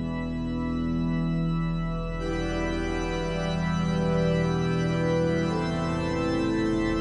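Intro theme music: held chords, the chord changing about two seconds in and again around five and a half seconds.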